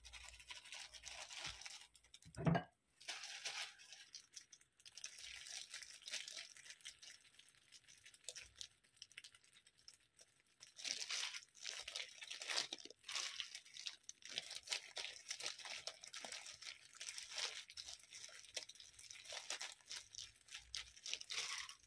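Thin plastic food glove crinkling and rustling as a gloved hand presses sushi rice flat in an aluminium tray and then spreads a crab-stick and mayonnaise topping over it, with soft squishing. One short dull thump about two and a half seconds in is the loudest sound.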